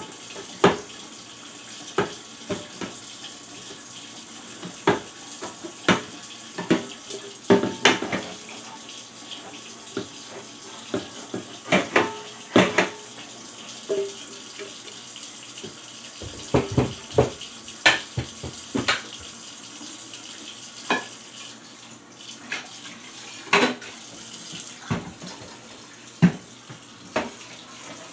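Kitchen tap running steadily into a stainless steel sink while dishes are washed by hand, with frequent sharp clanks of a metal pot and dishes knocking against the sink, some leaving a brief metallic ring.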